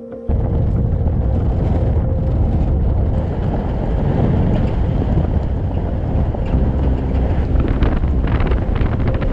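Strong wind buffeting the microphone: a dense low rumble that cuts in abruptly a moment in and holds steady.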